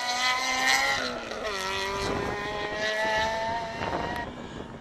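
Rally car engine revving hard as the car passes and pulls away; the pitch falls sharply about one and a half seconds in, then climbs again before falling once more near the end.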